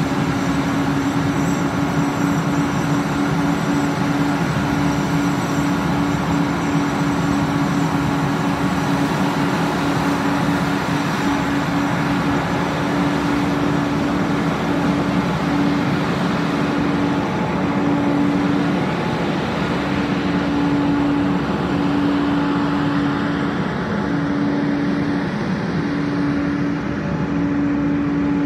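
Engine of a moving farm vehicle running steadily: a constant drone with one strong steady hum in it.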